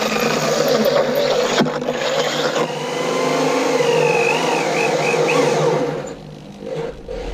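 Power drill running under load as it bores a hole up through the bottom of a boat's hull, steady for about six seconds and then stopping.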